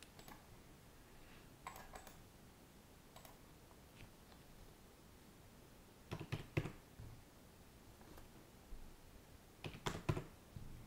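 Faint computer keyboard keystrokes and clicks in short groups, typing numbers into a command line. The busiest, loudest bursts come a little past halfway and near the end.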